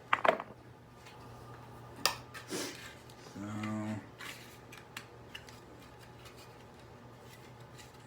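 Hard plastic clicks and snaps as an alarm clock's casing and internal parts are pried and pulled apart: a quick cluster just after the start, then single clicks about two seconds in and around five seconds in.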